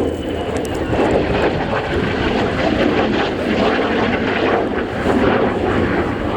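Lockheed Martin F-35B Lightning II's single Pratt & Whitney F135 turbofan, a loud steady jet roar with a deep rumble as the aircraft makes a slow pass, swelling just before the start and holding throughout.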